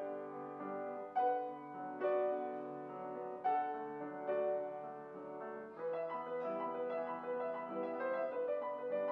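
Grand piano played solo: struck notes and chords at a slow pulse, turning about six seconds in to a quicker, busier run of notes.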